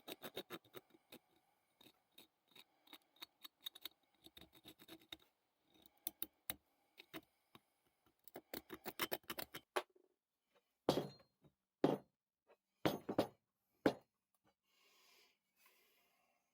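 Small metal parts being worked by hand: a quick, irregular run of light clicks and ticks, then four louder, longer scraping strokes near the end.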